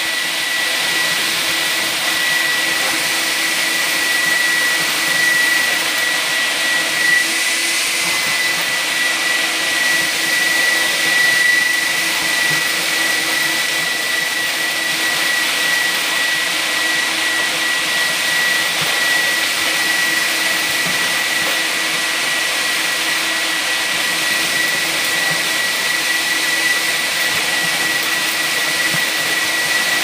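KCL industrial vacuum cleaner running steadily, its corrugated hose sucking up compost from a wheelbarrow: a constant rush of air with a steady high whine over it.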